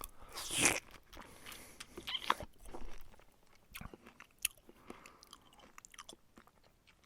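A person biting into and chewing crunchy food close to the microphone: one loud crunch about half a second in, then a run of shorter crunching chews and sharp clicks.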